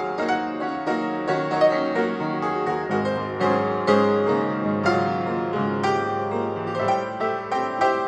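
Background piano music: a gentle piece of quick, flowing notes, several per second.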